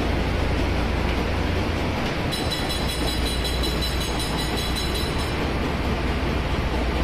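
Steady din of a ship's engine-room machinery with a constant low hum. About two seconds in, a high whistling tone comes in for about three seconds, then stops.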